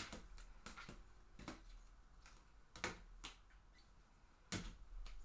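Trading cards being handled and set down: a scattering of light, irregular taps and clicks.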